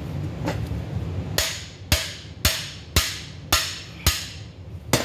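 Hammer blows on a cam bearing installer bar, driving a cam bearing into the camshaft tunnel of a Pontiac 400 engine block. About seven sharp metallic strikes, roughly two a second, each ringing briefly, starting about a second and a half in.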